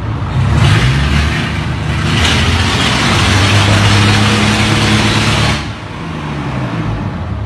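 Hino J08C inline-six diesel engine running loud, with a heavy rushing hiss over its steady low note. The hiss cuts off suddenly about five and a half seconds in, and the engine runs on more quietly.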